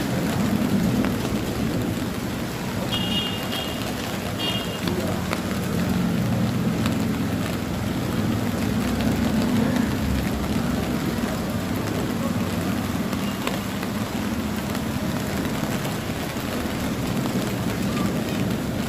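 Steady rain falling, with a low rumble of thunder underneath that swells slightly near the start and again around the middle.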